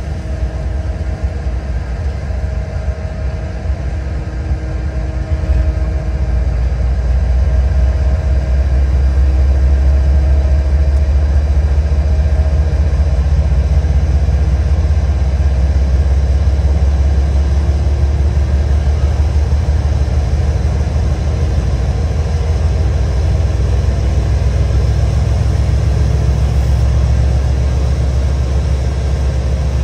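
Diesel freight locomotive engine running, a low steady drone that grows louder about six seconds in and then holds.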